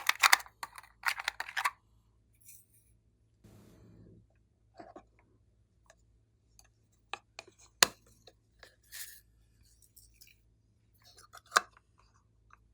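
Glossy slime being mixed by hand: scattered sticky clicks and crackles, with a dense burst of crackling at the start and a few sharp single clicks later on.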